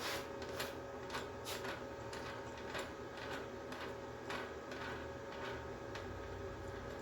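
Irregular light clicks and rattles of hands working on a flux-core MIG welder's wire feed, about a dozen over several seconds, over the welder's steady electrical hum.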